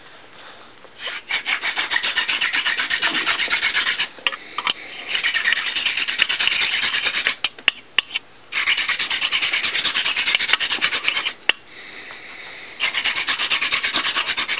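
Hand-drill friction fire: a hemp-stalk spindle spun back and forth between the palms, grinding into a basswood hearth board with a fast, fluttering rasp. It comes in four spells of a few seconds each, with brief breaks as the hands go back to the top of the spindle.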